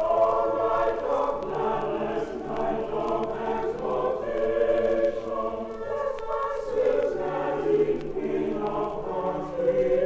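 A schoolboy chapel choir singing a Christmas carol in several voices, from a 1963 LP record.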